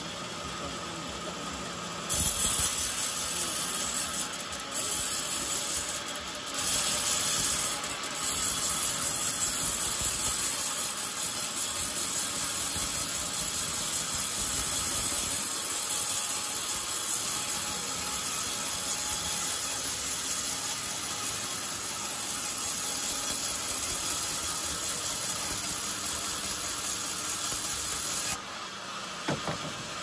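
Band sawmill blade ripping a coconut-wood timber lengthwise. A loud, steady hiss starts about two seconds in, falters briefly a few times early on, and stops a couple of seconds before the end, leaving the saw running more quietly without load.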